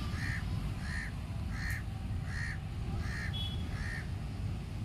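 A bird calling six times in a row, the short calls evenly spaced about two thirds of a second apart, over a steady low rumble of wind and surf.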